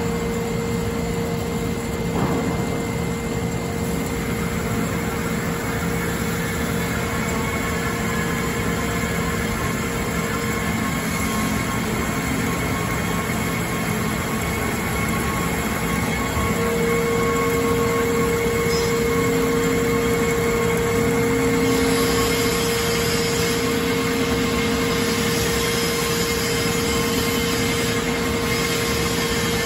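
Horizontal metal-cutting bandsaw running, its blade cutting through a metal tube under flowing coolant: a steady machine hum with a whine, growing a little louder and brighter past the middle of the cut.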